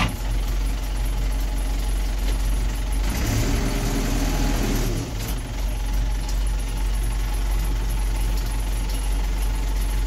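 2001 New Holland LB90 backhoe loader's diesel engine running steadily at idle. About three seconds in, a hiss comes in for some two seconds while the engine note rises and falls back, as the loader hydraulics take load.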